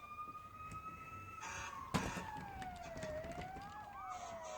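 Faint siren wail, a single tone that rises slowly, then falls, climbs briefly and falls again, as a fire engine heads to the fire. A sharp click comes about two seconds in.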